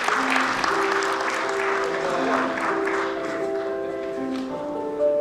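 Audience applauding, the clapping dying away over about four seconds, over background music with slow held notes.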